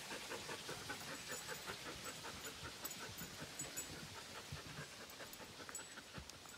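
A dog panting in quick, even breaths, fading over the second half.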